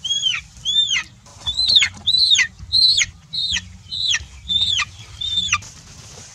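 Chicken giving a series of about nine high, distressed calls, roughly two a second, each one rising briefly and then sliding sharply down in pitch.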